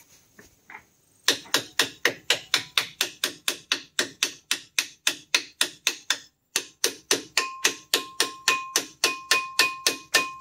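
Hammer striking metal in quick, even blows, about four a second, with a brief pause about six seconds in; in the later blows the struck part rings with each hit.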